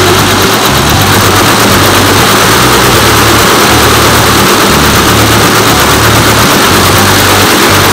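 Richpeace multi-head computerized embroidery machine running, its needles stitching through padded quilted fabric: a loud, steady mechanical noise with a low hum underneath.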